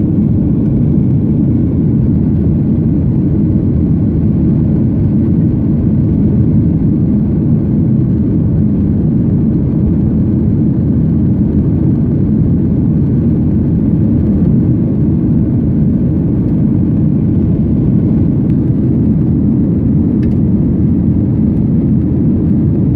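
Steady rumble of an airliner's engines and airflow heard from inside the passenger cabin during takeoff, an even low roar without change in pitch or level.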